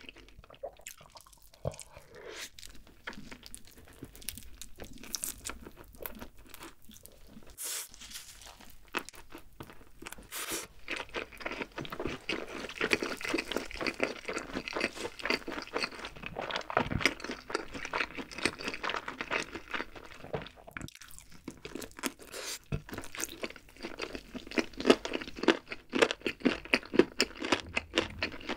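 Close-miked eating of a grilled, spicy barbecue-glazed chicken leg: bites, meat pulled from the bone, and chewing, a dense run of small crunches and crackles. It grows louder about halfway through.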